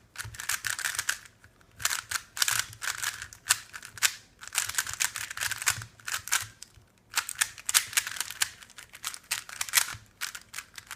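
GAN 356 S speedcube being turned fast by hand: rapid plastic clicking and clacking of the layers in several quick bursts with short pauses between them.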